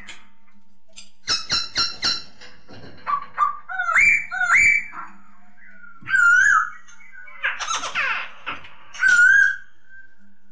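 Hong Kong poksay, a laughingthrush, singing in loud separate phrases. There is a quick run of short notes, then rising slurred whistles and warbling whistles, with one harsher rasping burst near the end.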